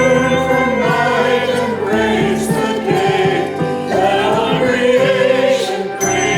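A choir singing a hymn in held notes with vibrato, the lower parts moving in steps beneath.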